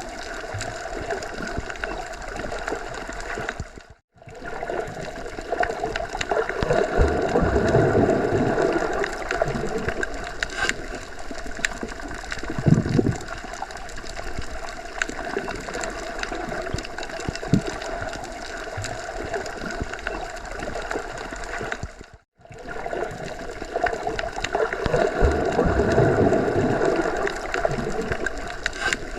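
Underwater ambience: a steady, muffled rush of water with slow swells and gurgles. It cuts out for a split second twice, about four seconds in and again about twenty-two seconds in.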